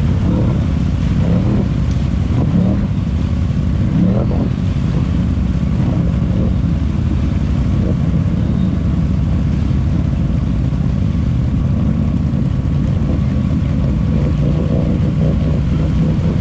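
ATV engine running hard under load as the quad churns slowly through deep mud, revving up and down in the first few seconds and again near the end.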